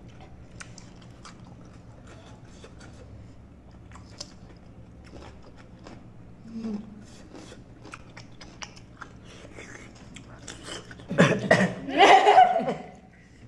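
Crisp crunching and chewing of raw cucumber slices close to the microphone, a quiet run of small crunchy clicks. Near the end a person's voice breaks in loudly for about two seconds.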